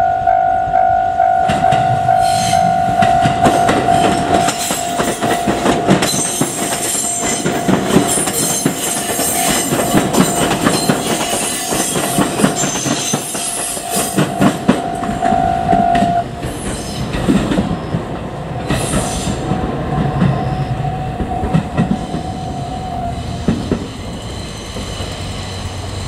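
JR Kyushu 787-series electric train passing close by, its wheels clacking over the rail joints with a running rumble, while a level-crossing alarm bell rings as one steady tone. The clacking dies away about two-thirds of the way through; the bell carries on more quietly and stops a couple of seconds before the end.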